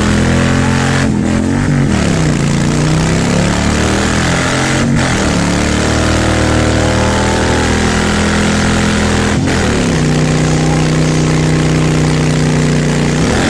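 Bagger motorcycle engine revving hard through a burnout, the rear tyre spinning on the pavement. The revs swing up and down for the first few seconds, then hold high and steady, with brief dips about five seconds in and again near nine and a half seconds.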